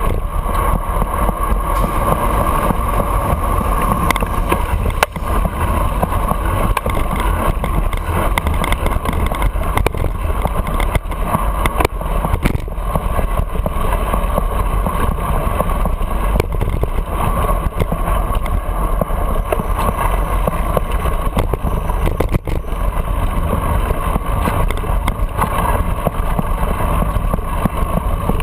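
Steady rush and rumble of wind and road noise on a bike-mounted camera's microphone while cycling through city traffic, with a few sharp knocks.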